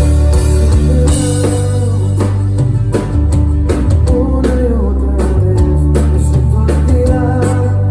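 Live band playing loudly through amplified gear during a rehearsal sound check: heavy bass notes, regular drum hits, guitar and a wavering melody line.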